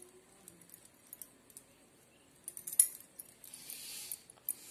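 Wrist bangles clinking lightly as hands fold and shape a ball of stuffed paratha dough, with one sharp clink near the three-second mark. After it comes a soft rubbing hiss of palms pressing the dough.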